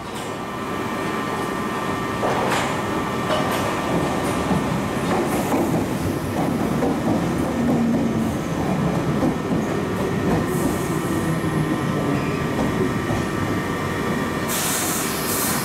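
London Underground Piccadilly line 1973 Tube Stock train running along the platform: a steady rumble of wheels on rail, with a faint traction-motor whine that rises and falls. A brief hiss comes near the end.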